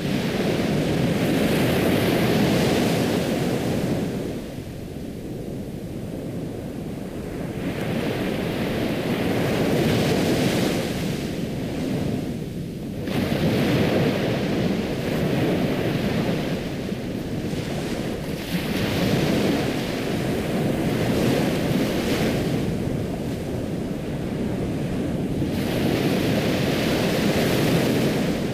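Ocean waves surging and washing onto a shore in slow swells, each rising and falling back over a few seconds.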